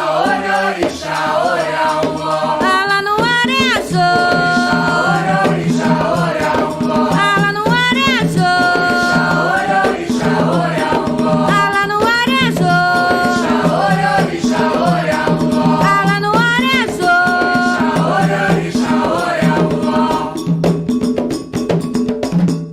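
Candomblé song for Xangô: singing over dense, steady hand percussion. A sung phrase with gliding pitch comes back about every four seconds.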